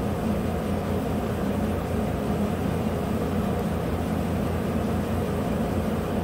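2015 GMC Sierra's 5.3-litre V8 idling with a steady, even low hum.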